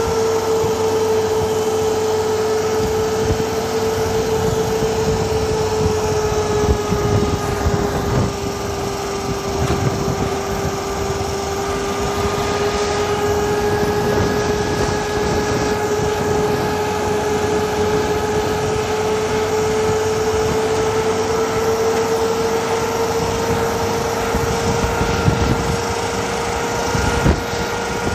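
A vehicle driving along a paved road: engine and road noise with a steady whine that sags slightly in pitch midway and comes back up, and a couple of small knocks near the end.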